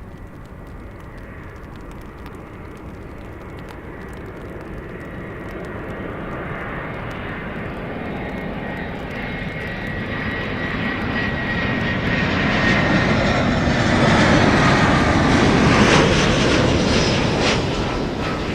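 Airliner engines passing close by, growing steadily louder to a peak a few seconds before the end, with a thin whine that slowly falls in pitch, then starting to fade.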